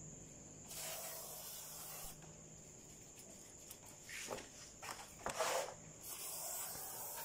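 Aerosol spray can of cleaner hissing in several bursts of varying length.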